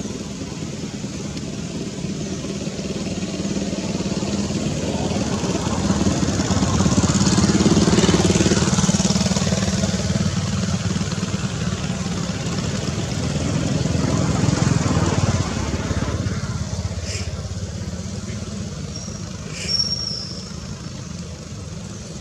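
Engine of a passing motor vehicle, swelling to a peak about eight seconds in and again around fifteen seconds before fading. A sharp click sounds near the end.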